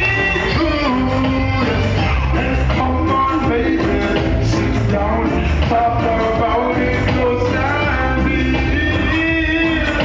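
Live dancehall music played loud through a club sound system, with heavy bass and a male vocalist singing into a microphone.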